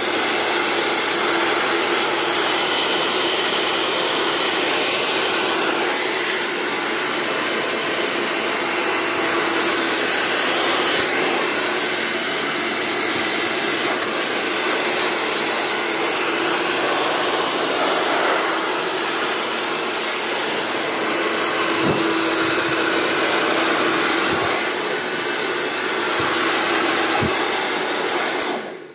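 Household hair dryer running steadily, its air blown into the exposed indoor coil of a split air conditioner to clear out dust. It cuts off near the end.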